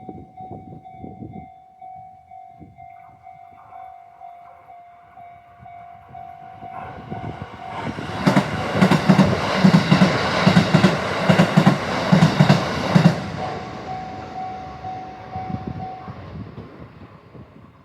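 Level crossing warning bell ringing on one steady tone while an electric commuter train runs through the crossing, its wheels clacking regularly over the rail joints, loudest from about 8 to 13 seconds in. The bell goes on ringing after the train has passed and stops about two seconds before the end.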